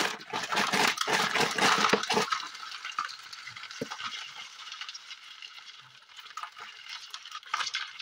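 Live crabs scrabbling in a plastic basin: many quick clicks and scrapes of shells and legs on plastic and on each other. The clatter is loudest over the first two seconds, then settles to a softer rustle with scattered clicks.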